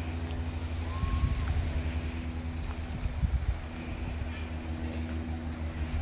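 Outdoor ambience dominated by low wind rumble on the microphone, with a short bird whistle about a second in and faint high chirps.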